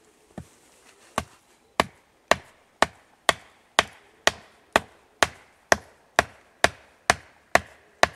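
A sharpened hazel stake being driven into the ground by a steady run of sharp knocks on its top, about two a second, the first couple lighter.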